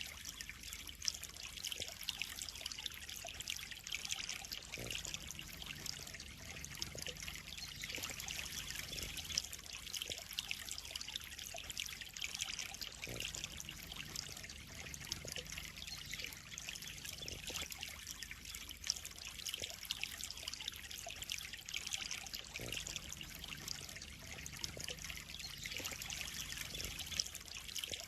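Water trickling and pouring steadily into a koi pond, with a few brief louder splashes.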